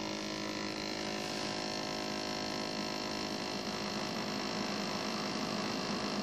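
Keurig single-cup coffee brewer running a full brew cycle: a steady electric hum from the machine.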